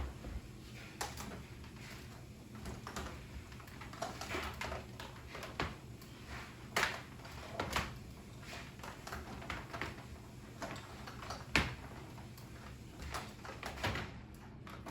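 Irregular knocks, clicks and short scrapes of household things being handled and set down, with a low steady hum underneath.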